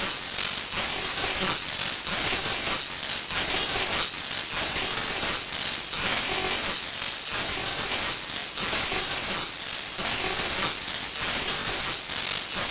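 Steady, harsh static hiss, an even rush of noise with no tone in it, like the static of a dead broadcast channel in an emergency-alert sequence.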